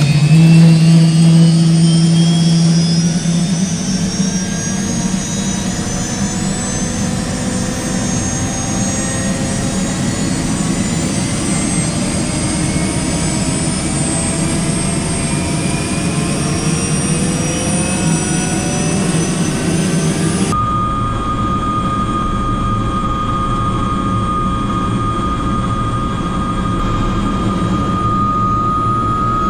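Bell 206 JetRanger's Allison 250 turboshaft spooling up on the ground, its turbine whine climbing steadily in pitch. About twenty seconds in the sound jumps to a steadier high turbine whine.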